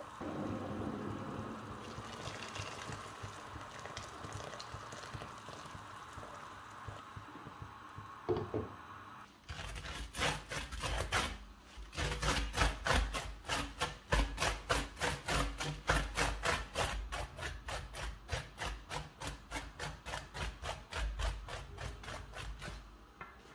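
A pot boiling with a steady bubbling hiss. About nine seconds in, a two-handled rocking chopper (mezzaluna) starts chopping molokhia leaves on a steel tray, its blade striking the metal in a fast, even rhythm until near the end.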